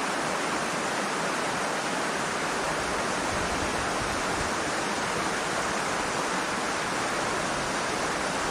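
Steady rush of a shallow rocky river, water running over stones in riffles.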